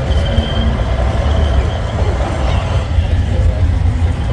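Wind buffeting the phone's microphone, a loud uneven low rumble, over faint fairground noise.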